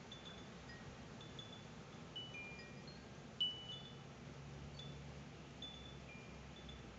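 Faint wind chime ringing: scattered single high notes at a few recurring pitches, the clearest about three and a half seconds in.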